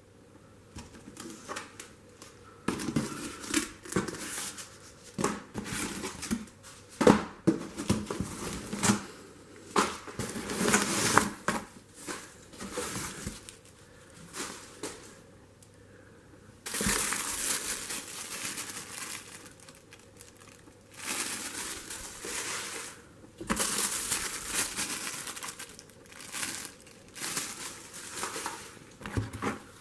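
Packing material in a parcel crinkling and rustling as it is rummaged through and pulled out, in irregular handfuls with sharp crackles and a few longer stretches of steady crumpling.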